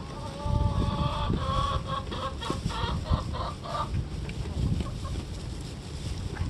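A hen squawking: one drawn-out call, then a quick run of clucks, about three a second, for some three seconds in all; a hen's protest at being pestered by a goat kid.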